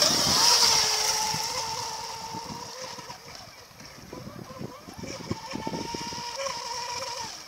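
Electric RC mono racing boat with a Tenshock VZ1515/14 brushless motor launched at full throttle: a steady high motor whine over the hiss of propeller spray. It fades over the first few seconds as the boat runs away, then grows louder again.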